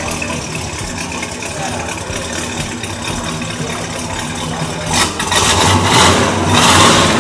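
V8 engine of a restored 1966 Pontiac GTO idling steadily, then revved hard about five seconds in.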